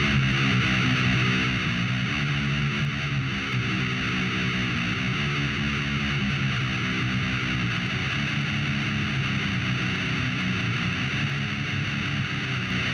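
Heavy metal recording playing, with distorted electric guitars in a steady riff.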